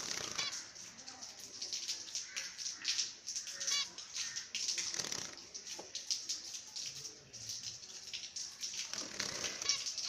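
Zebra finches calling: a busy run of short, high chirps, several a second, with a few louder calls standing out, over some rustling.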